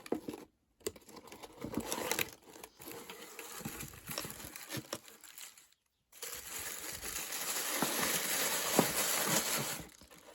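Paper packaging crinkling and rustling as a beauty subscription box is opened and its contents handled, with a short pause about halfway and denser, steadier crinkling after it.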